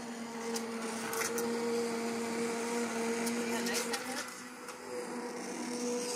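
Handheld immersion blender running steadily, puréeing cooked chunks of carrot soup in a stainless steel saucepan: a constant motor hum with a few sharp ticks, dipping briefly in level about two-thirds of the way through.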